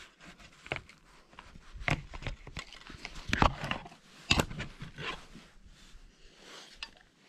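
Irregular clicks, knocks and rustles of a Canon EOS DSLR being handled and set up for shooting, with two sharper knocks about three and a half and four and a half seconds in.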